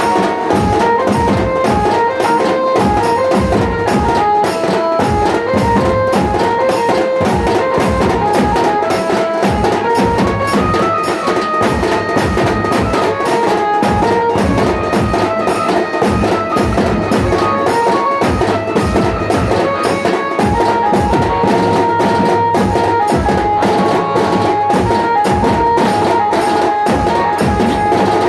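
Large steel-shelled dhol drums beaten hard and fast in a steady, dense rhythm, with a melody line of held notes running over the drumming.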